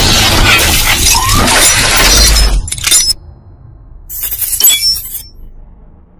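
Intro sound effects for an animated logo reveal: a loud, glassy shattering effect over a deep rumble that cuts off about three seconds in. A short, high sparkling burst follows about a second later and fades out.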